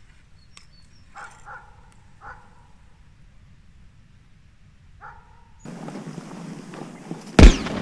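A few faint barks of hunting dogs, then a single loud splash near the end as a caught European perch is dropped back into a small pool.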